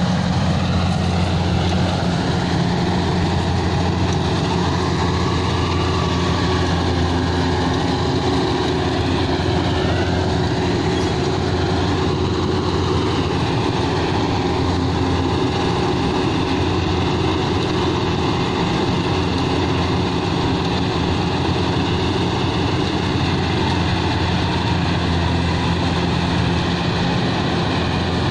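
Rice combine harvester running steadily as it cuts through the field, its engine giving a constant low drone.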